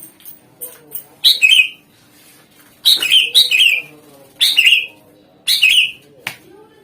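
Cucak ijo (greater green leafbird) calling in loud, short, repeated phrases, five in all about a second apart, each a quick note dropping in pitch.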